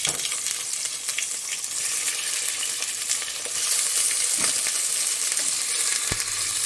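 Chunks of red meat sizzling as they fry in hot oil in a stainless steel pot, a steady hiss with a couple of light knocks.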